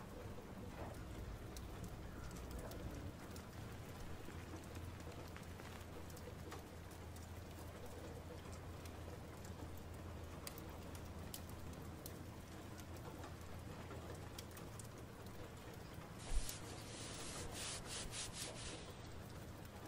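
Layered room ambience: a low steady hum with scattered faint clicks, then a single thump about sixteen seconds in followed by a few seconds of rustling.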